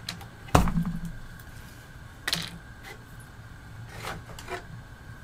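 Small parts being handled and set down on a tabletop cutting mat: a sharp knock about half a second in, another a little after two seconds, and a few lighter clicks near the end, over a faint steady high whine.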